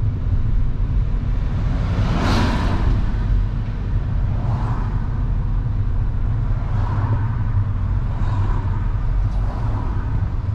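Steady low road and engine rumble of a moving car heard from inside the cabin. A vehicle whooshes past about two seconds in, and fainter ones pass several times after.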